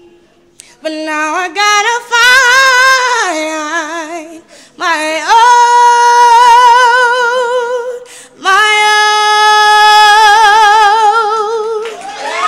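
A woman singing unaccompanied, in three phrases. The last two are long held notes with a wide vibrato.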